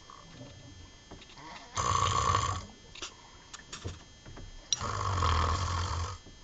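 A person snoring: two long snores, the first about two seconds in and a longer one about five seconds in, with quieter sound between them.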